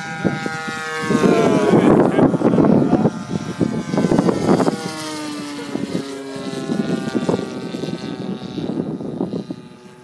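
DLE 20cc single-cylinder two-stroke gas engine of a 63-inch Seagull Skyraider RC model running in flight, its pitch sliding down about a second in and again around the middle as it passes. Wind gusts rumble on the microphone throughout.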